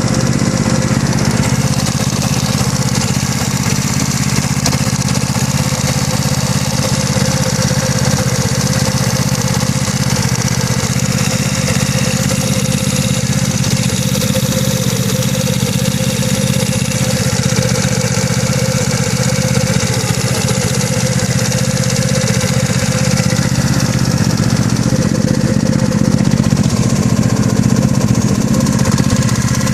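GY6 180cc scooter engine running at a steady idle with a knocking noise, which the owner thinks comes from the cylinder head and says has got louder recently. The engine gets slightly louder over the last few seconds.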